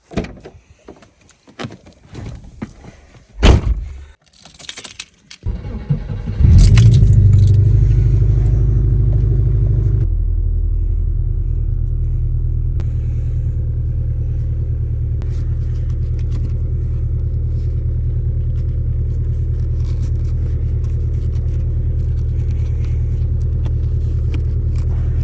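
Keys jangling among a few clicks and thumps, then about five seconds in a Subaru Impreza's flat-four boxer engine starts. It runs at a raised idle for a few seconds, then settles to a steady idle.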